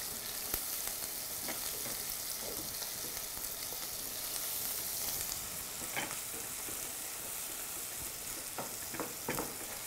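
Minced beef with onions and pepper sizzling in oil in a nonstick frying pan, stirred gently with a wooden spatula that scrapes and taps the pan now and then.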